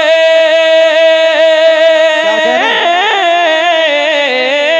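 A man singing a naat through a microphone, holding one long note with vibrato. About two seconds in it breaks into a run of quick ornamented pitch turns, then settles back onto the held note near the end.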